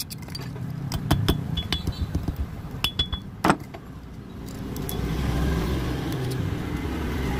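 A thin steel pick clicks and scrapes against the empty slots of an electric motor's stripped stator core, giving a string of sharp metallic clicks and knocks with a brief ring, the loudest about three and a half seconds in. In the second half a low rumble rises and holds.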